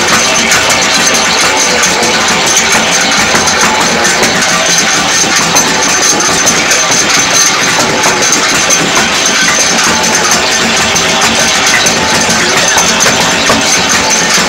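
Naswar tikki-forming machine running: its electric motor and conveyor belt make a steady mechanical noise.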